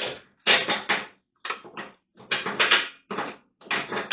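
Ratchet tie-down strap being cranked tight, a series of short rasping ratchet strokes about one every two-thirds of a second.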